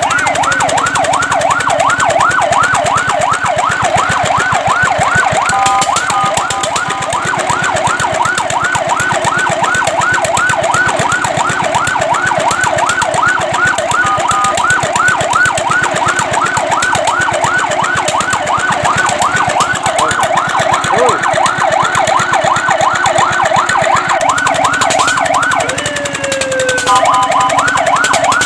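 Fire truck siren on a fast yelp, its pitch sweeping up and down about three times a second. It breaks twice for short steady tones, and near the end gives one slower falling sweep before steady tones.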